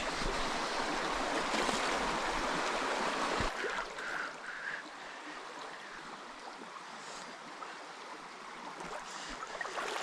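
River water running over a shallow stream bed, a steady rushing that drops noticeably quieter about three and a half seconds in.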